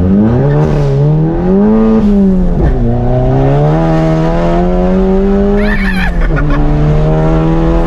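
Turbocharged 2.0-litre four-cylinder of a tuned MK7 Volkswagen Golf at full-throttle acceleration. The engine pitch rises through one gear, drops at an upshift about two and a half seconds in, climbs again, and drops at a second upshift near six seconds, then holds.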